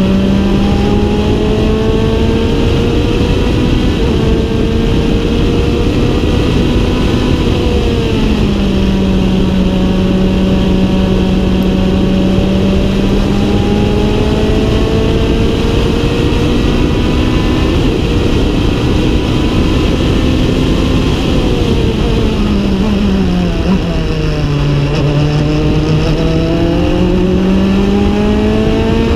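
Norma M20F sports-prototype racing engine heard from inside the open cockpit at speed: the revs climb slowly, drop about eight seconds in, hold and climb again, fall away for a few seconds past the twenty-second mark, then climb again near the end. Steady wind and road noise run under the engine.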